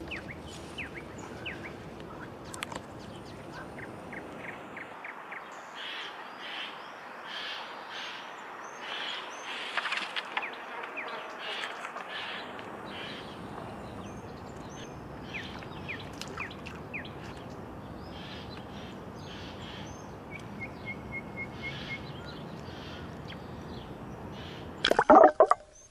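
Wild birds chirping and calling, with a short trill of evenly repeated notes about twenty seconds in, over a steady outdoor background. Near the end comes one short loud burst of noise, as a hooked fish is swung up out of the water.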